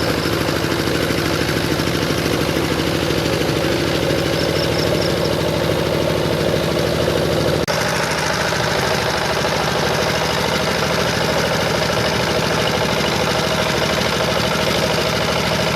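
Power tiller's single-cylinder diesel engine running steadily with a fast regular chug while it works the paddy mud. About halfway through the sound breaks off for an instant and resumes a little changed in tone.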